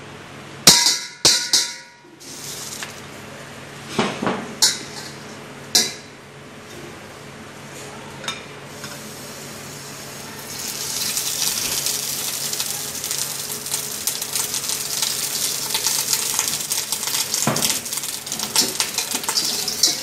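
A few clatters of bowls and utensils, then from about halfway a steady sizzle of butter melting in a stainless steel bowl over a gas burner, with a wire whisk clinking and scraping against the metal.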